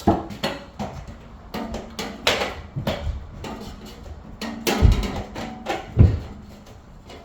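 New anode rod being fed down into a water heater tank: irregular knocks and clunks, with two heavier deep thumps about five and six seconds in.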